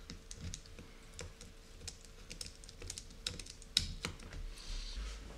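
Small metal clicks and ticks, irregular and close together, from the gold anodized aluminium steering links and fittings of a WLToys A959 RC car chassis being turned and adjusted by hand; the sharpest click comes a little before four seconds in.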